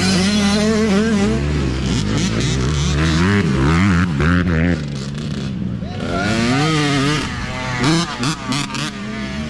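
Youth dirt bike engines revving as riders pass one after another, the pitch rising and falling with each blip of the throttle. The sound dips briefly a little past halfway between bikes, then another bike revs past.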